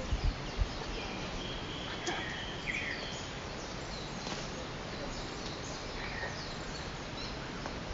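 Steady outdoor background noise with scattered bird chirps and a longer whistled call, plus a few low thumps right at the start.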